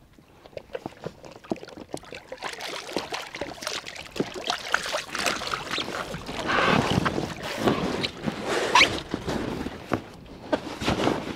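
Water splashing and dripping as a gill net's line and mesh are worked by hand through the water at the side of an inflatable boat, with small knocks and rustles of the net. The splashing grows from a few seconds in and is loudest past the middle.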